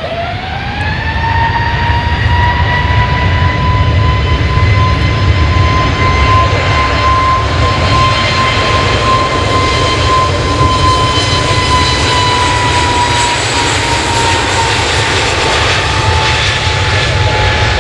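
Jet airliner's engines spooling up: a whine that climbs quickly in pitch in the first second, then holds high over a loud, deep rumble. The whine drops slightly in pitch after about thirteen seconds.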